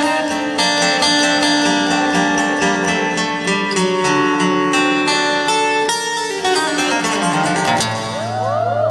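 Solo fingerstyle acoustic guitar played live, a picked melody ringing over bass notes.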